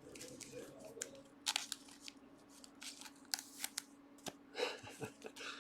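Baseball trading cards and pack wrappers being handled: soft, irregular clicks, snaps and rustles as cards are flicked and slid against each other.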